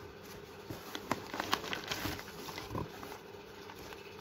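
Handling of a cardboard shipping box and the clear plastic bag inside it as a packaged nail kit is lifted out: scattered soft taps and light rustles.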